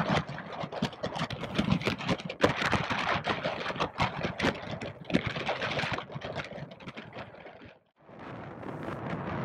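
Strong wind buffeting the microphone on a sailboat heeled over in a blow, an uneven gusty rush broken by many sharp knocks. The sound cuts out suddenly for a moment near the end, then the rush returns steadier.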